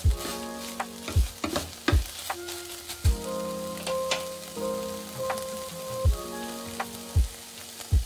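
Electronic background music with held synth notes and a deep kick drum about once a second, over the sizzle of chicken mince frying in a pan. A spatula stirs and scrapes the pan near the start.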